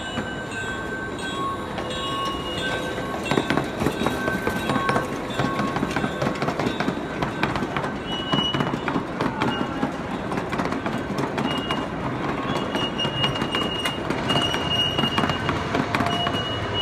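Wheels of a small ride-on miniature train rumbling and clattering along its track, with rapid irregular clicks over the rail joints, getting louder about three seconds in, heard from aboard a passenger car.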